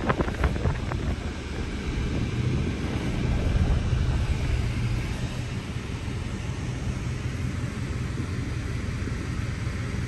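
Car running, heard from inside the cabin: a steady low engine rumble with an even rush of road noise.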